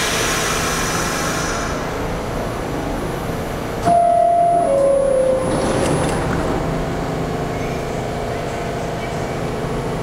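New York City subway train's two-note descending door chime sounds about four seconds in, signalling that the doors are closing, over the steady hum of the standing train's motors and ventilation.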